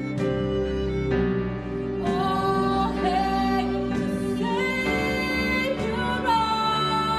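A woman singing a worship song in long held notes, backed by a live band with violin and electric guitar.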